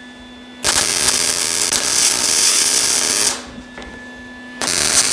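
MIG welder arc crackling and hissing in two runs, starting about half a second in and again near the end, with a short pause between: short welds being laid along a steel pipe rail. A faint steady hum is left in the pause.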